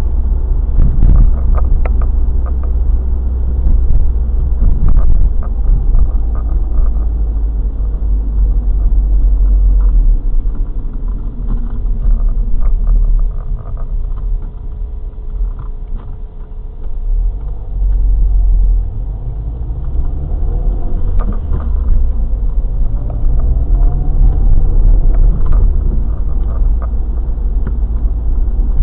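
Car cabin rumble heard through a dashcam's microphone: deep tyre and road noise with engine drone while driving on city streets. It dips for a few seconds in the middle, there are a few sharp knocks, and a rising engine note comes past the middle.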